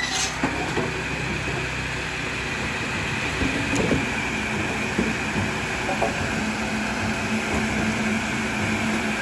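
Wood-cutting machine's motor running steadily, with a steady low hum from about three and a half seconds in and a few short knocks.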